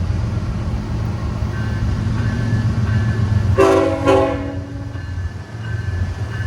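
Amtrak train's air horn sounding two short blasts about halfway through, over the train's steady low rumble.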